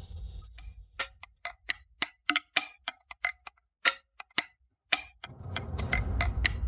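Rapid, irregular series of sharp ticking clicks, a clock-like percussion beat in a suspense music cue. A low rumble swells in under it near the end.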